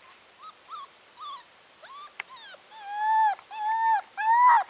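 Bracco Italiano puppy whining: a few faint short whimpers, then from about halfway through louder, longer cries, each rising and falling in pitch, coming about once every half-second and building in strength.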